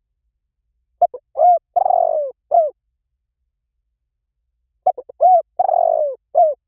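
Spotted dove cooing: two phrases about four seconds apart. Each is a couple of quick short notes, a coo, a longer coo that falls in pitch, and a closing short coo.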